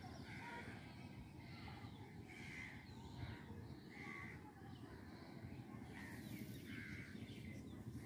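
Crows calling: a run of short calls about once a second, with a brief pause about five seconds in, over a faint steady low rumble.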